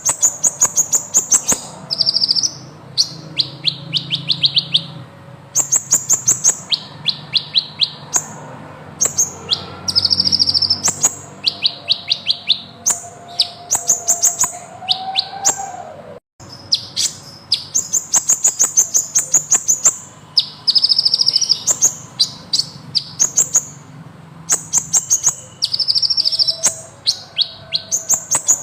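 A sunbird (the 'kolibri ninja' of Indonesian bird keepers) singing in full voice: rapid, high-pitched trills and rolling runs of notes, repeated with short pauses between phrases.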